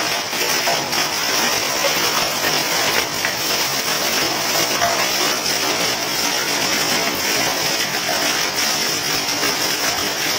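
Heavy rain mixed with small hailstones pouring down onto wet pavement: a dense, steady hiss with many tiny hits.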